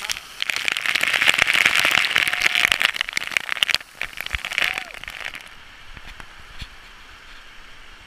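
Heavy waterfall spray pelting a GoPro camera and its housing: a dense, loud crackling patter of water hitting the case. About five seconds in it gives way to a quieter, steady rush of water.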